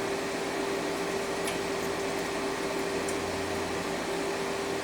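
Steady mechanical hum and hiss of a fan-like machine running, with a constant droning tone. Two faint light ticks come about a second and a half in and about three seconds in.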